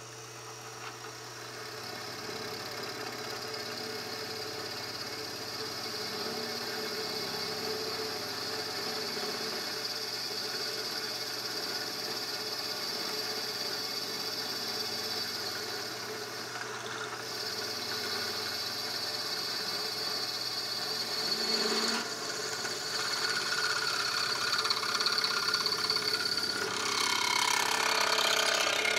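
Drill press running, its twist bit boring through a forged steel bracket with a steady motor hum and cutting noise that grows louder over the last few seconds.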